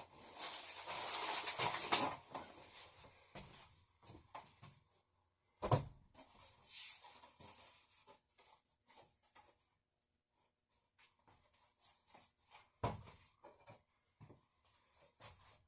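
Canvas drop cloth being handled and rustled for cushion-making, with a burst of rustling at the start, then scattered knocks and a few sharper thumps as the materials are moved and worked.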